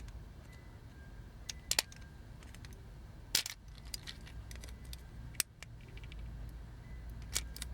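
A few scattered sharp clicks and taps of a small metal tool against a toy robot's plastic and metal parts while a joint pin is being worked out, over a low steady hum.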